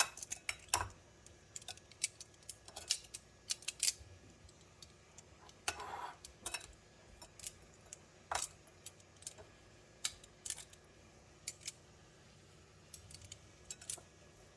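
Pieces of hilsa fish being mixed by hand with spices, giving scattered light clicks and knocks with a soft rustle about six seconds in.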